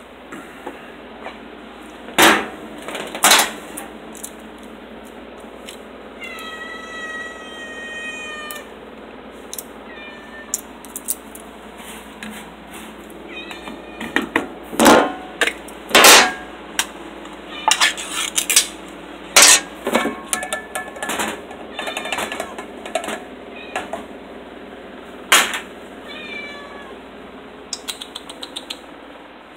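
Hungry house cats meowing for their food: one long drawn-out meow, then many shorter meows. Loud sharp knocks come in between.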